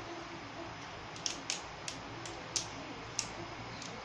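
About six light, sharp plastic clicks at uneven spacing over a faint steady hiss: spinning tops and their launchers being handled and clicked together off to the side.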